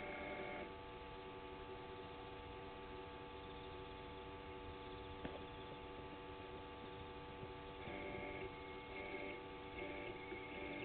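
Faint, steady electrical hum made of several tones at once. A brighter, higher whine joins it briefly at the start and then comes and goes several times in the last three seconds.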